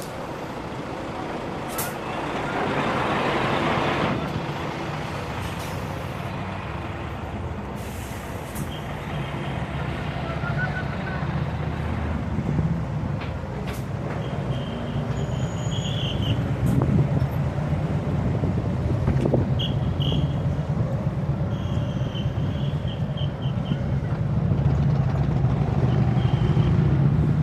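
Street traffic dominated by a large bus running close by: a steady low engine rumble that grows louder toward the end, and a hiss of air about two to four seconds in from the bus's air brakes.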